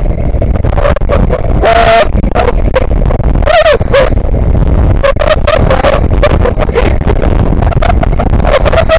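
Wind buffeting the microphone of a camera moving fast through the air, a dense low rumble, with several short high-pitched squeals over it. The clearest squeals come about two seconds and three and a half seconds in.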